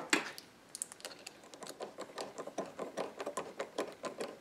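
A brief scratchy noise, then a worm-drive hose clamp clicking rapidly and unevenly, several clicks a second, as a nut driver tightens it around a plastic collar over a freshly epoxied broken table leg.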